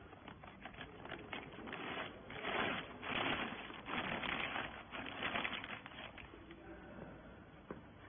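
Rapid, irregular mechanical clattering and rattling, loudest through the middle and dying away near the end.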